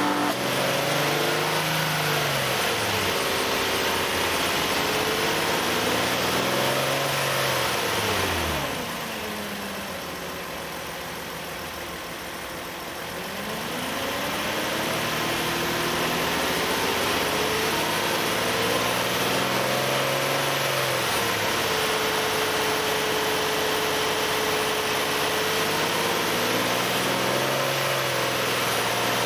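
Nissan Elgrand ME51's 2.5-litre four-cylinder engine revved up and down several times with the air-conditioning compressor engaged, dropping back to a quieter low speed for a few seconds about a third of the way in and holding steady revs for a while later on. This is the abnormal noise the owner gets from around 2000–2500 rpm only when the A/C compressor is working.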